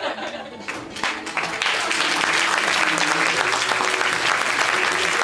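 Theatre audience applauding: a few scattered claps at first, filling in to full, steady clapping about a second and a half in.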